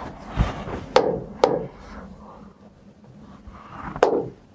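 A stylus tapping the glass of an interactive touchscreen whiteboard: three sharp taps, about a second in, half a second later, and near the end, over a soft rubbing against the screen in the first second and a half.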